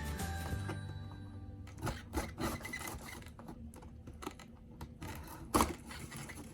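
Background music fades out in the first second or so, then cardboard and a plastic case rub and scrape with scattered clicks as the case is worked out of its box, with one sharp knock about five and a half seconds in.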